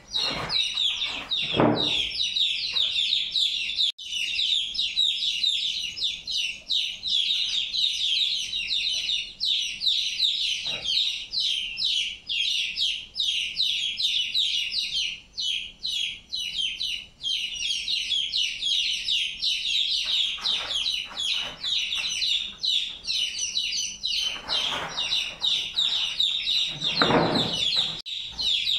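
Young chicks peeping continuously in rapid, high-pitched cheeps, with a few duller handling rustles near the start and in the last seconds.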